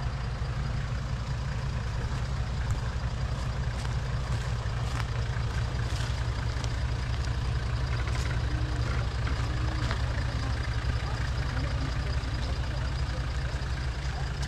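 Toyota LandCruiser 70-series ute's engine running at steady low revs as it crawls through deep mud ruts, giving a constant low rumble with a few faint clicks.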